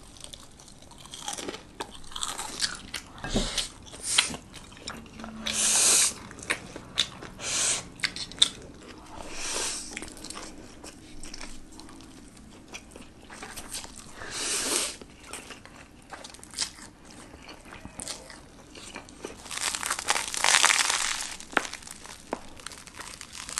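Crunchy bites and chewing of fried chicken and other food: a string of sharp, irregular crunches, with a longer run of crunching near the end.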